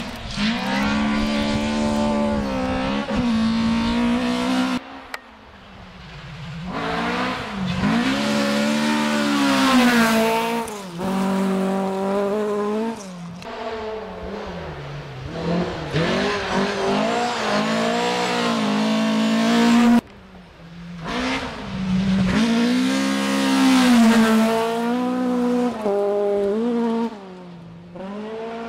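Toyota Corolla GT AE86 rally cars' 1.6-litre 4A-GE twin-cam four-cylinder engines revving hard under acceleration. The pitch climbs and drops again and again with the gear changes. The sound changes abruptly about five seconds in and again near twenty seconds, where one car's run cuts to another's.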